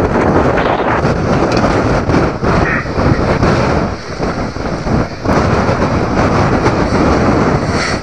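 Strong gusty wind buffeting the microphone, with a few short knocks from the old sedan's loose, bent hood swaying and flapping in the gusts.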